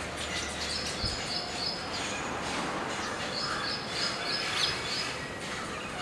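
Baya weavers chirping: two runs of quick, high chirps, the second starting about halfway through, over a steady background hiss.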